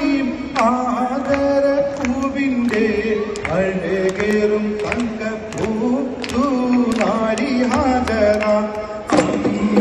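Men singing a Mappila kaimuttu pattu, a Malayalam hand-clapping folk song, with sharp claps keeping the beat through the melody.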